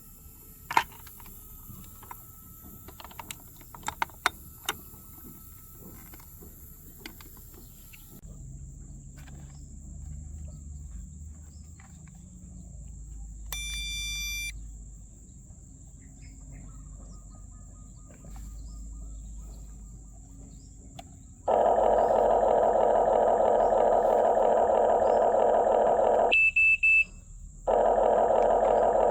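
Huina 1580 remote-control excavator: a few light handling clicks, then a short electronic beep, and from about two-thirds of the way in a loud steady electric whirring, which stops for about a second and starts again.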